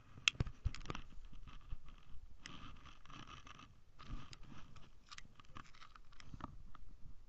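Handling noise from a body-worn camera: scratchy rustling of jacket fabric against the microphone, broken by many sharp clicks and knocks. The loudest knocks come just after the start.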